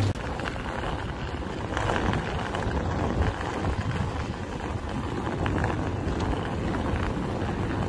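Busy railway-station forecourt ambience: a steady rumble of traffic and crowd noise, with the rolling of suitcase wheels on paving.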